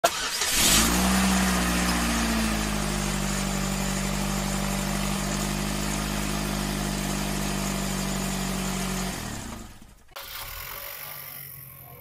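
Car engine starting with a sudden burst, revving briefly and settling into a steady idle, then fading out about nine seconds in.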